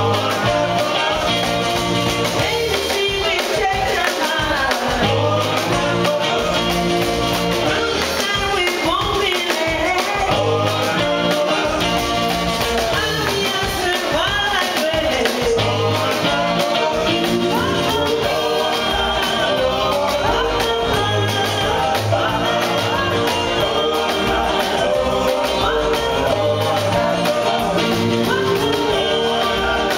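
Live rock and roll band playing, with a woman and a man singing over slapped-style upright double bass and drums, in a steady driving beat.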